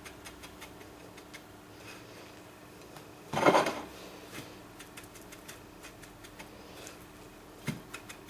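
Hands pressing a chicken thigh into a breadcrumb coating on a ceramic plate: faint scattered taps and rustles of crumbs. One louder sound lasting about half a second comes about three and a half seconds in, and a short knock near the end.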